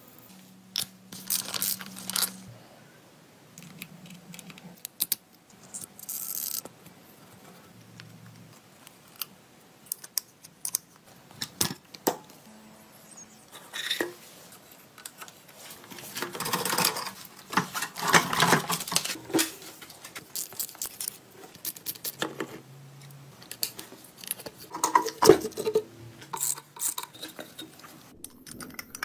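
Irregular clicks, clinks and short scrapes of metal parts being handled and worked on by hand, with a denser stretch of scraping and rubbing about halfway through.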